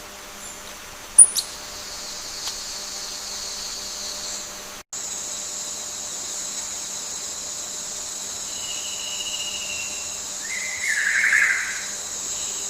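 Forest ambience: a steady high-pitched insect buzz, briefly cut off about five seconds in, with a short squeal near the end.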